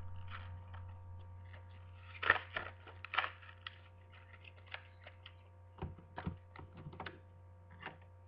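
Plastic toy packaging being opened by hand: a run of irregular crinkles, clicks and snaps, the two loudest about two and three seconds in. A steady low hum sits underneath.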